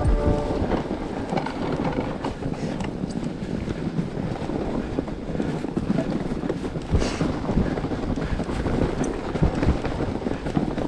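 Mountain bike riding over a snow-covered trail: steady wind noise on the microphone, with tyres running through the snow and irregular low thumps as the bike jolts over bumps.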